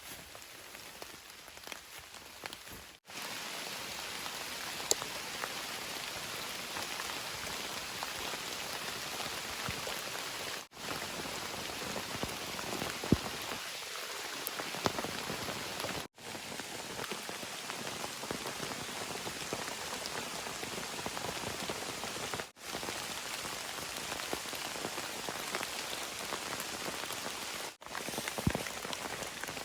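Steady rain falling, with scattered individual drops tapping sharply. The rain is softer for the first three seconds, then cuts out for a split second several times.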